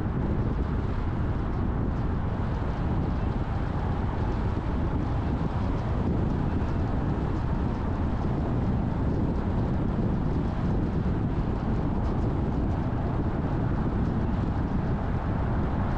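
Steady road noise of a car driving: a constant low rumble of tyres and wind with no distinct events.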